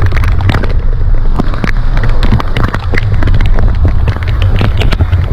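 Wind buffeting the microphone with a loud, steady low rumble, with many quick irregular taps of heavy rain striking it, while cycling through a storm.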